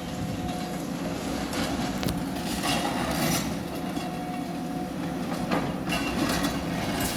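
Demolition excavator with a claw working: its engine runs steadily while rubble crunches and clanks several times as the claw bites into the building.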